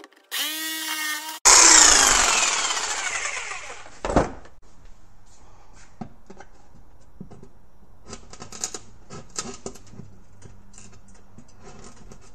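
A jigsaw runs briefly with a steady whine, then cuts into the plywood with a loud rasp that fades as its pitch falls and the blade winds down, with a thump about four seconds in. After that a hand file scrapes the edges of the cutout in short strokes.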